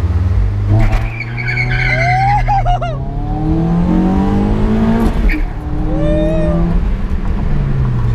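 Car engine breathing through a large aftermarket 'fart cannon' muffler, accelerating hard: the exhaust note climbs in pitch, breaks at a gear change about five seconds in, climbs again and then eases off near the end.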